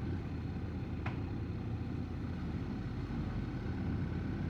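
Honda NC750 DCT motorcycle's parallel-twin engine running at a steady cruise, with road and wind noise, heard from the bike as it rides.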